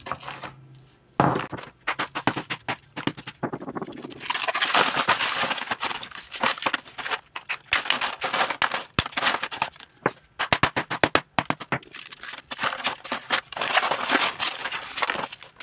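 A block of ice being smashed into chunks in a plastic basin: a rapid run of sharp cracking knocks with stretches of crunching, starting about a second in.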